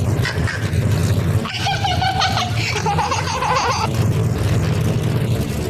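Steady low drone of an airplane engine sound effect as the toy plane flies. From about a second and a half in until about four seconds, high squeaky giggling plays over it.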